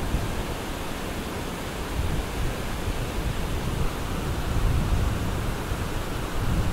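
Wind buffeting the microphone: a steady rushing noise with gusty low rumbling that swells around the middle.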